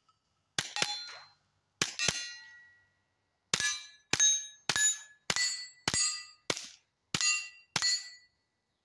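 Suppressed Kel-Tec CP33 .22 LR pistol, wearing a SilencerCo Sparrow titanium suppressor, firing about ten shots, each with the ringing clang of a steel target being hit. A few slower shots come in the first two seconds, then a steady string of roughly two shots a second from about three and a half seconds in.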